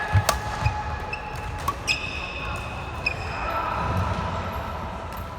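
Badminton rally in a sports hall: rackets hitting the shuttlecock with sharp smacks, two of them clear, about a second and a half apart, and brief squeaks of court shoes on the floor.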